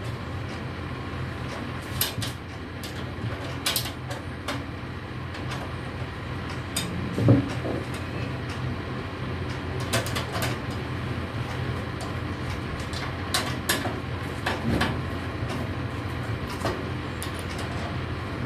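Scattered light clicks and small knocks of computer parts being handled and fitted into a PC case, over a steady low hum, with one louder knock about seven seconds in.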